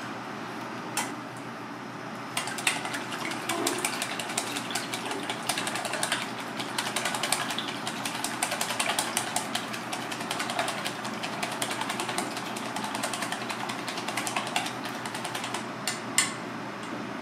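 Wooden chopsticks beating a raw egg in a stainless steel bowl: a rapid, continuous clatter of sticks against the metal, starting a couple of seconds in and stopping near the end, over a steady background hum. A single knock about a second in and two sharp clicks near the end.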